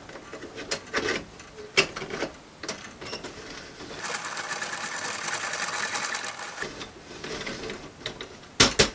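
Winding key turning the weight drum of a 3D-printed plastic pendulum clock: scattered clicks, then about two and a half seconds of fast, even ratchet clicking as the drum is wound. Two sharp knocks near the end as the clock is struck to free its gravity-driven ratchet pawls.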